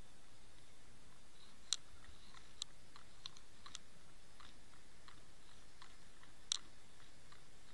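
Underwater sound heard through a camera's waterproof housing: a faint steady hiss with scattered sharp clicks, the loudest a little under two seconds in and again late on.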